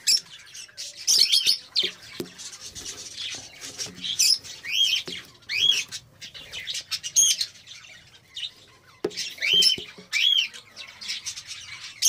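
Budgerigars chirping and calling: many short rising-and-falling chirps that come in clusters, with a quieter gap about two-thirds of the way through.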